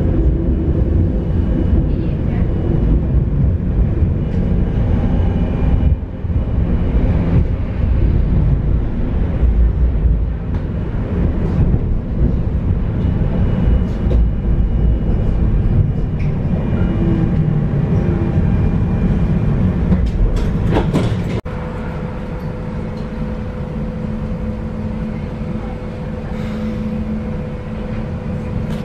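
Tram running along the rails with a steady low rumble and some clatter from the track. About three-quarters of the way through, the noise drops suddenly to a quieter steady hum.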